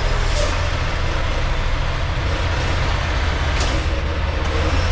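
Semi-truck's diesel engine running steadily, a deep low rumble, with two brief high hisses, one just after the start and one about three and a half seconds in.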